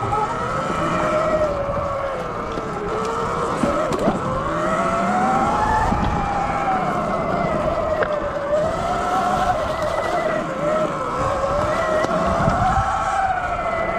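Sur Ron Light Bee X electric dirt bike's motor whining, rising and falling in pitch as the throttle and speed change, over a low rumble from the ride, with a couple of sharp knocks.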